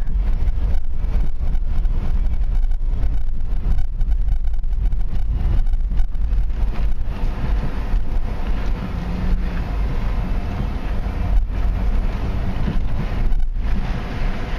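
2003 BMW 325xi wagon's 2.5-litre straight-six and road noise as the car is driven, with frequent short knocks from the suspension, which the driver takes for worn stabilizer links.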